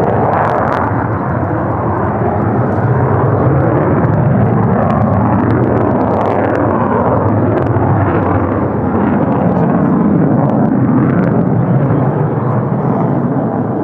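F-35A Lightning II fighter jet's single Pratt & Whitney F135 turbofan, a loud, continuous roar as the jet flies its display.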